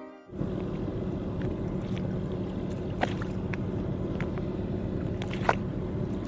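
A boat's engine running steadily, a low rumble with a steady hum, with a few sharp clicks and knocks scattered through it, the loudest about five and a half seconds in.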